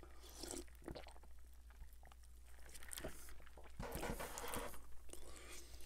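Close-miked sips and swallows of cherry Coke from a paper cup, faint and quiet, with small mouth clicks. About four seconds in comes a soft breath out after the drink.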